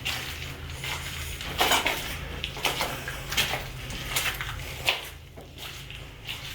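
Irregular hard clinks and knocks, several a second and uneven in strength, over a steady low hum.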